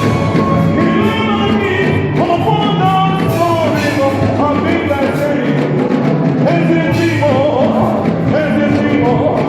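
Church music: singing with a band accompaniment, steady bass notes under the melody.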